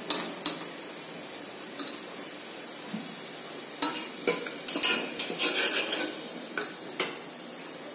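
Hot oil sizzling in an aluminium pressure cooker as deep-fried onion slices (birista), fried to dark golden brown, are scooped out with a wire skimmer. The skimmer scrapes and clinks against the pot a few times early on and repeatedly in the second half.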